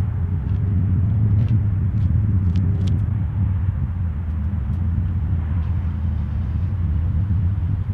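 Lifted Chevrolet Silverado pickup's engine running with a steady low rumble as the truck rolls slowly toward the microphone, with a few light clicks in the first few seconds.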